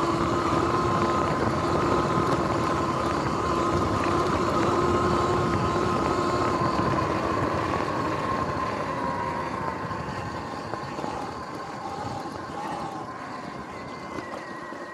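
Sur-Ron X electric dirt bike under way: a steady high motor whine over a dense rushing noise. About halfway through, the whine sinks in pitch and the whole sound grows quieter as the bike slows.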